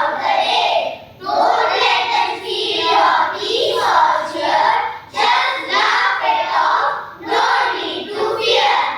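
A chorus of children's voices reciting a poem in unison, in a rhythmic sing-song chant with short breaks about once a second.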